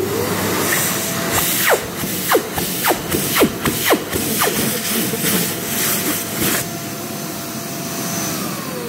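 phs Airstream Vitesse hand dryer blowing at full speed with a steady motor whine. The air noise surges several times as hands move in the airflow, then eases, and near the end the motor winds down with a falling tone as it shuts off.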